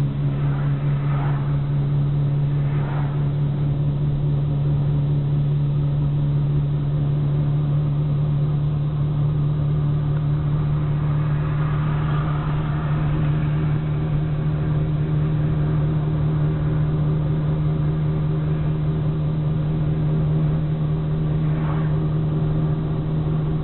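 Car interior while driving: a steady low engine drone with road noise, unchanging throughout.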